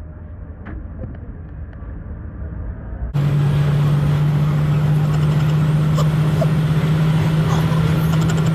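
Road vehicle in motion: a low rumble of engine and road noise. About three seconds in it turns suddenly much louder, into a steady rushing drone with a constant low hum.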